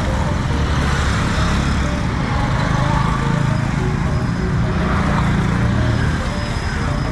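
Steady road traffic noise: cars and trucks passing with engine rumble and tyre noise.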